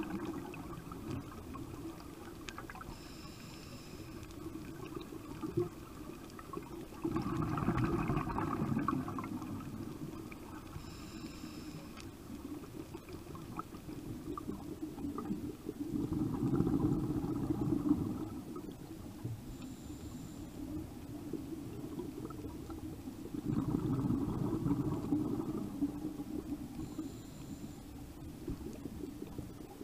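Scuba diver breathing through a regulator, heard underwater: gurgling bursts of exhaled bubbles about every eight seconds, each lasting a couple of seconds, with a faint brief high hiss of the inhale between them.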